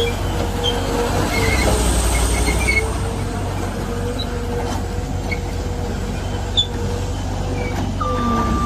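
The 56 HP Case diesel engine of a Case 420CT compact track loader running steadily, its low note swelling for about a second and a half shortly after the start, with faint short squeaks. A steady beep, typical of a back-up alarm, starts near the end.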